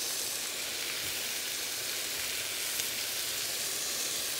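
Marinated chicken pieces sizzling steadily in a hot cast-iron pan.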